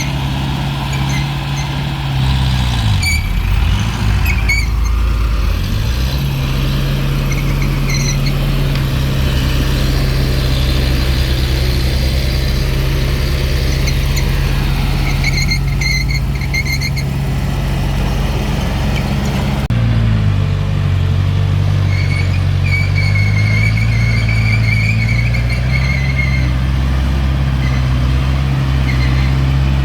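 Diesel engine of a small crawler bulldozer running steadily under load, with short high squeals now and then. Its note dips briefly a few seconds in and drops lower about two-thirds of the way through.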